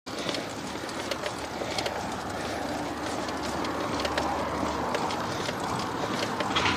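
Wind rushing over the microphone and tyre noise on asphalt while riding a road bicycle, a steady rush with a few scattered light ticks.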